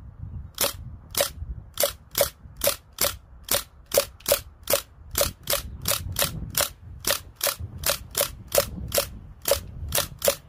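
Umarex MP40 CO2 BB gun firing a long string of sharp metallic shots, about two to three a second, starting about half a second in and continuing without a break.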